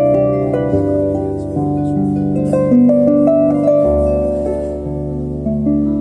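Solo harp being played: plucked melody notes and chords ringing into one another, over changing bass notes, with a deep low bass note sounding from about four seconds in.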